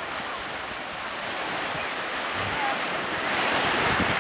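Sea surf washing on the shore, a steady rushing that swells near the end, with wind on the microphone.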